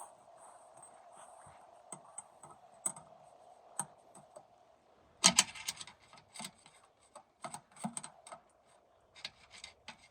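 Irregular metallic clicks and knocks of hand tools and parts being worked on a car's rear differential during axle and gear removal, with a quick run of rapid clicks about five seconds in.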